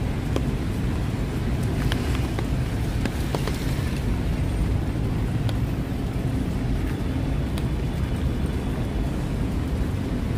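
Steady rain over a low rumble of road traffic, with scattered sharp ticks of drops.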